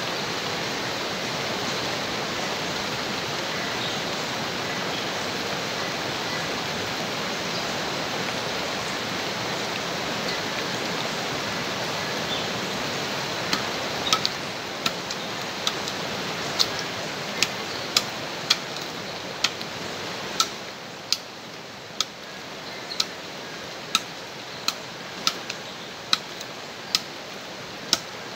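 Steady rushing of a river. From about halfway, a blade chops into wood in sharp knocks, roughly one a second, as kindling is split.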